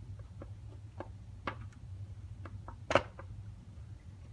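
Plastic clicks and knocks as the Spin Master BB-8 toy's internal drive mechanism is set down and seated in its hollow plastic shell half, with one louder knock about three seconds in.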